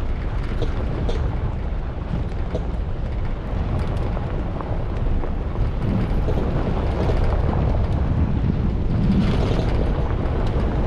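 Jeep driving on a gravel road: a steady low rumble of tyres on gravel and the running engine, with wind buffeting the microphone and a few small clicks.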